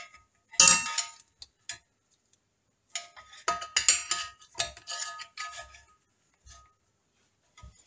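Two steel screwdrivers levering and scraping against the heated timing side roller bearing on a 1975 Triumph Trident T150V crankshaft, trying to prise the tight bearing off. Metal clinks and scrapes come in irregular bursts with short ringing notes, and a sharp clank sounds right at the start.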